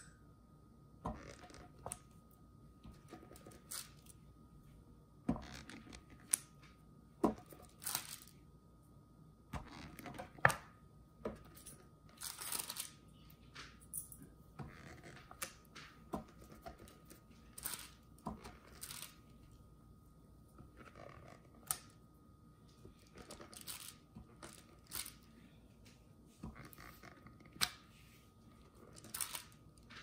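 Plastic soda bottle's bottom being dipped in paint and stamped onto paper over and over: quiet, irregular taps and crackles of the thin plastic, one every second or two.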